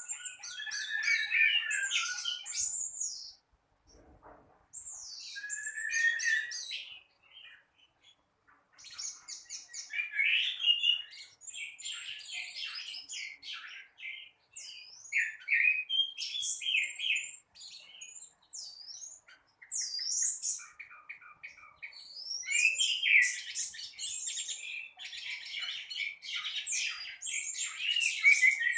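Orange-headed thrush singing continuously: a long, varied song of whistled glides and rapid chattering note runs, broken by short pauses.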